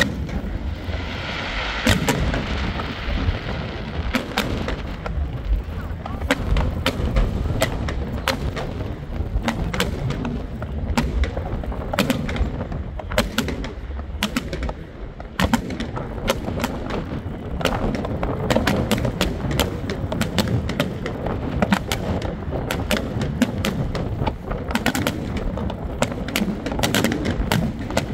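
Fireworks display: aerial shells bursting in quick, uneven succession, many sharp bangs and crackles over a continuous low rumble.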